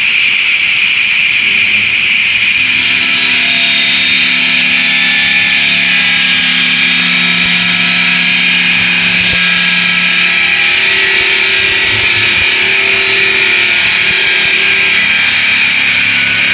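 Large circular saw blade of an automatic cutting machine cutting through a precast concrete slab: a loud, steady high whine with hiss, over the low hum of the drive motor. The hiss grows fuller about three seconds in as the cut settles in.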